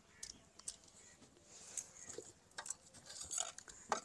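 Wooden pestle pounding garlic and green herbs in a stone mortar: a string of short knocks, coming thicker in the second half.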